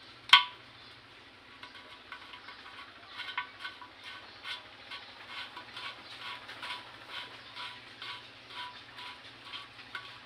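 A threaded PVC pipe fitting being twisted tight by hand, the plastic squeaking in short, repeated squeaks about twice a second. There is a single sharp click just after the start.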